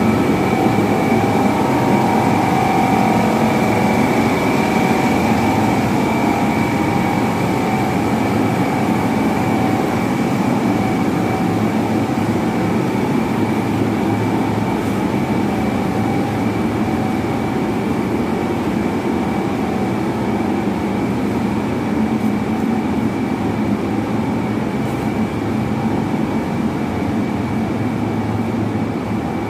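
A row of large electric motors driving pumps, all running at once: a loud, steady, noisy mechanical hum with a constant high whine over it.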